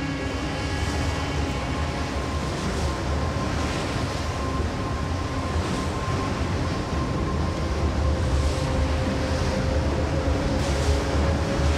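Steady low rumble of a large steamship's engines under a wash of water, with soft swells of hiss every couple of seconds and a faint held tone over it.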